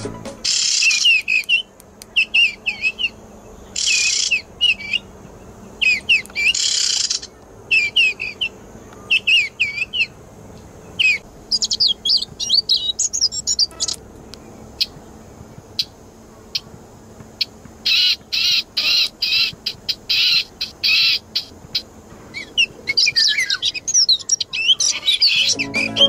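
Recorded bird calls played back by an MP3 bird caller: bursts of quick, high chirping phrases with short pauses between them, and a longer lull in the middle where there are only a few faint clicks.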